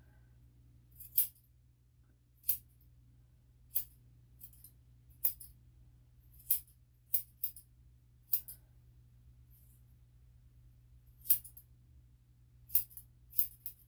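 Grooming scissors snipping hair on a Shih-Tzu's face: about a dozen crisp metallic snips at an uneven pace, roughly one a second, with a longer pause about two thirds of the way through.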